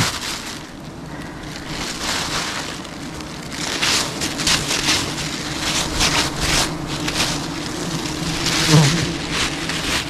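A swarm of honeybees humming steadily around a freshly cut wild nest, over repeated rustling and crinkling of a plastic bag as the comb is handled and bagged.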